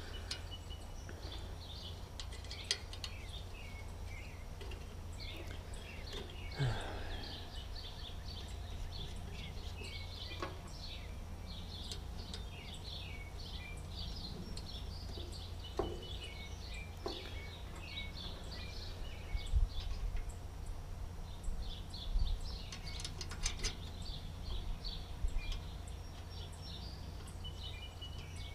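Birds chirping and singing throughout, over a steady low rumble. Small metal clicks and clinks come now and then as nuts are handled and threaded by hand onto the bolts of a mower sickle bar, with a cluster of louder clicks in the second half.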